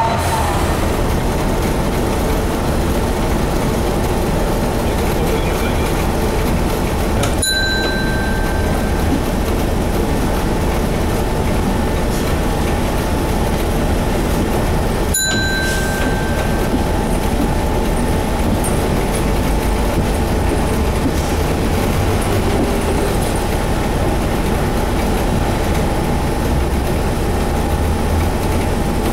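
Interior running sound of a Hino Blue Ribbon HT route bus (KC-HT2MMCA) with its 9.9-litre M10U inline-six diesel, driving steadily at low speed, with a steady high tone over the engine noise. Two sharp ringing clicks sound about seven seconds apart.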